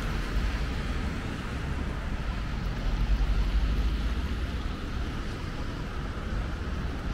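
Steady low rumble and hiss of city street noise, swelling slightly about three seconds in.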